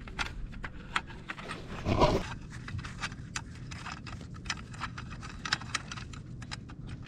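Scattered light metallic clicks and taps of a 5 mm Allen wrench and bolt as the last bolt of a Sur Ron's stock bash plate is worked loose and the plate handled, with a louder knock or scrape about two seconds in.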